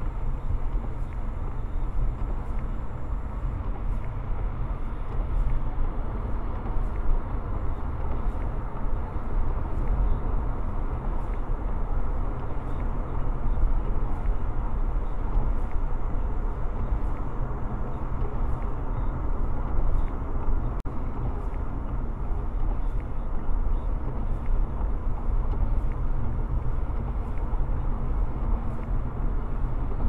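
Steady road and tyre noise of a car cruising on a wet highway, heard from inside the cabin, with a low rumble and no distinct events.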